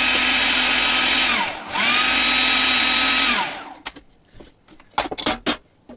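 Kenwood food processor motor running with a steady whine as it grinds steamed couscous into fine grains. It winds down about a second and a half in, starts again at once, and winds down for good a little past halfway. A few sharp plastic clunks follow as the lid is twisted off.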